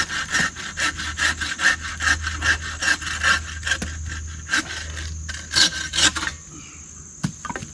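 Saw cutting through wood in quick back-and-forth rasping strokes, about three a second, stopping about six seconds in; a couple of knocks follow.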